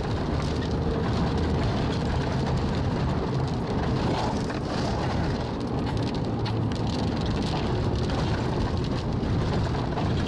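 Car interior while driving through rain on a wet road: a steady hum of engine and tyres, with scattered raindrops ticking on the windshield and body.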